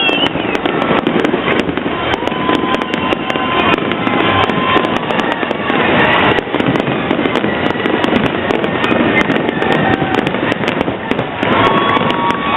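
Fireworks going off continuously: a dense, unbroken crackle of many sharp pops and bangs. A few steady, held tones come through over it.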